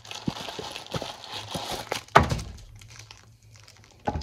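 A cardboard ice-cream box being torn open and a plastic bag of frozen ice-cream bars pulled out, crinkling and rustling, with a sharper knock about two seconds in and another near the end.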